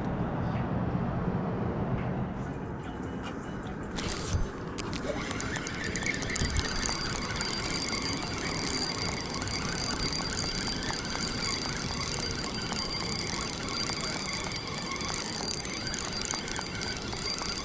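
A steady high-pitched squeal comes in about five seconds in and holds over constant rumbling noise, with a couple of short knocks just before it starts.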